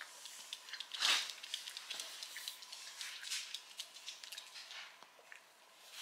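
Small dog (maltipoo) sniffing along a hard floor: quick short sniffs and light clicks of its claws as it walks, with one louder sniff about a second in.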